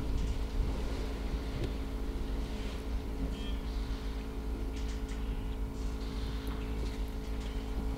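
Steady low hum of an idling engine, holding one unchanging pitch, with a few faint high chirps over it.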